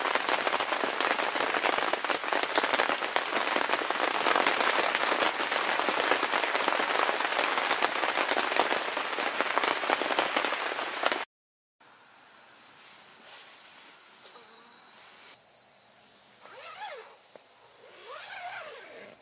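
Heavy rain pattering steadily on a canvas tent, heard from inside; it cuts off suddenly about eleven seconds in. A much quieter forest follows, with an insect chirping in short pulsed trains and a few bird calls that glide up and down near the end.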